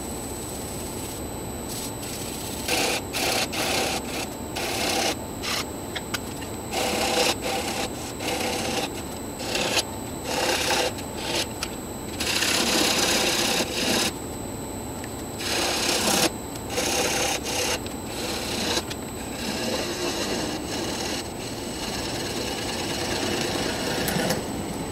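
Laguna Revo 1836 wood lathe running with a steady high whine, while something is pressed against the spinning Afghan pine box in repeated, irregular rubbing bursts as abrasive paste is worked onto the wood.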